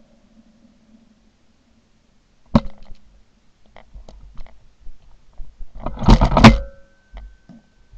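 Shotgun misfiring on a dud shell: a sharp click about two and a half seconds in as the firing pin strikes the primer without setting it off, then scattered small clicks of handling, and a loud gunshot about six seconds in.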